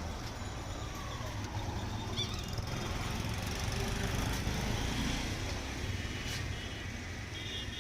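Street traffic: engine rumble from passing motor vehicles, swelling a little in the middle as one goes by.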